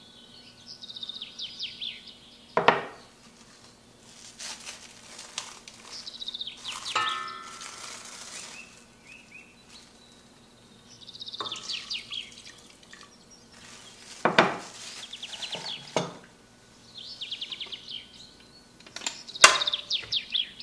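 A few sharp clinks of bowls and utensils against a stainless steel stand-mixer bowl as ingredients go in and the mixer head is lowered, the loudest about three seconds in, about fourteen seconds in and near the end. Between them a small bird chirps in quick high trills, again and again.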